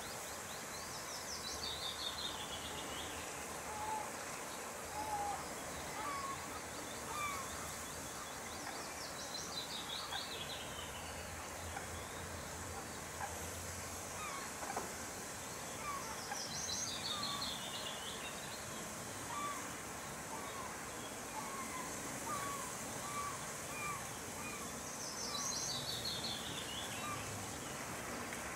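A songbird singing a short song of quick notes that falls in pitch, repeated four times about eight seconds apart, over a steady hiss of outdoor ambience, with scattered brief calls from other birds.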